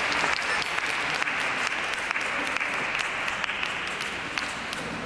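Audience applauding for a figure skater at the end of her programme, the clapping slowly fading toward the end.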